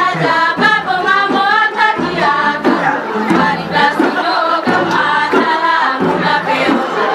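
A group of voices singing a traditional song together, with a steady beat of percussive strikes, as accompaniment to a line dance.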